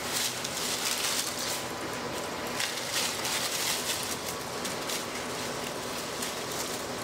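Dry leaves and twigs rustling and crunching under running, scuffling dogs, in uneven surges of crackly rustle.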